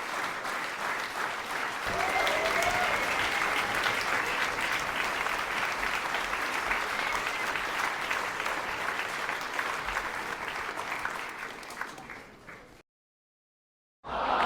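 Crowd applauding and cheering: dense clapping with a few voices calling out. It fades out near the end, then after a second of silence another burst of applause starts.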